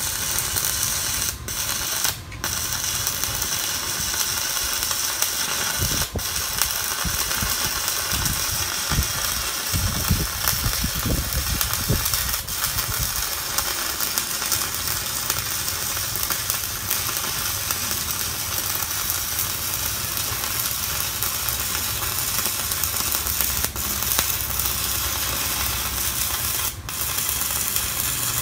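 Stick-welding arc from a Kenmax ARC 200 inverter welder burning a coated electrode: a steady, loud crackling sizzle as the rod is run in one continuous bead, with a few momentary breaks.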